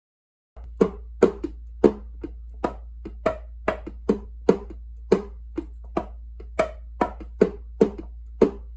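Rhythmic taps, about two and a half a second, each a short knock with a brief ringing pitch that shifts a little from tap to tap, over a steady low hum; it starts abruptly about half a second in.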